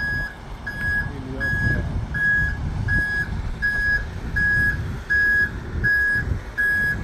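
Tractor-trailer's backup alarm beeping steadily as the rig reverses, about three beeps every two seconds, over the low rumble of the truck's engine.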